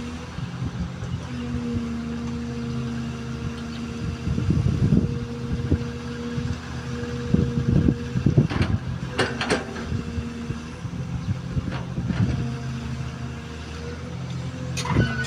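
XCMG XE215C excavator's diesel engine running steadily, its pitch shifting slightly, with scattered knocks and clatters, heaviest around the middle.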